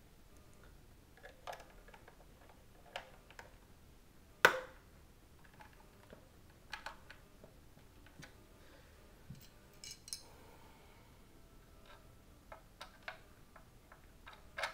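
Small Phillips screwdriver driving screws into a Halo paintball hopper's plastic shell: scattered light plastic clicks and ticks, with one sharp, much louder click about four and a half seconds in.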